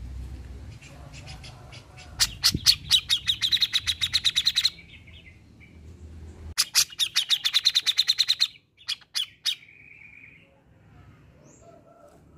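Grey-cheeked bulbul (cucak jenggot) calling: two fast runs of sharp, loud repeated notes, about eight a second and each lasting about two seconds. A few single notes and a short buzzy note follow.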